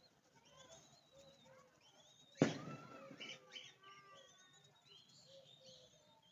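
Birds chirping faintly and repeatedly. About two and a half seconds in comes a sudden loud knock that rings on briefly.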